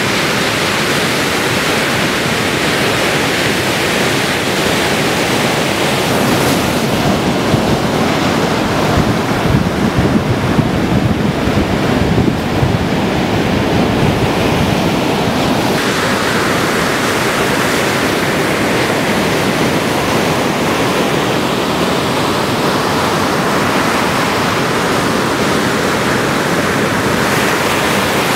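Ocean surf washing and breaking, with wind blowing on the microphone; the sound grows louder and rougher, with a low rumble, for several seconds in the middle.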